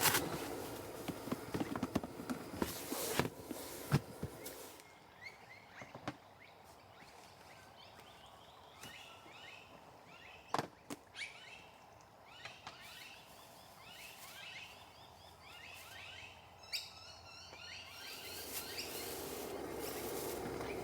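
Small birds chirping in short, quick, falling calls, repeated through the quiet middle stretch. A steady rushing noise with light clicks and knocks is heard for the first few seconds, stops, and comes back a few seconds before the end. A couple of sharp knocks fall in the quiet part.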